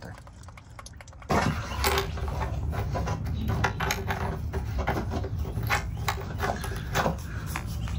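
A thin stream of diesel trickling from the fuel filter's water drain into a plastic drain pan. About a second in, a louder steady low noise starts, with many small clicks and knocks through it.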